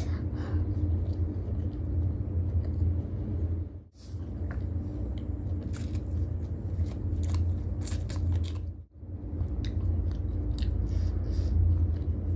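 Close-miked eating sounds: biting into and chewing chow mein noodles and spring rolls, with many short wet mouth clicks over a steady low hum. The sound breaks off briefly twice, about four and nine seconds in.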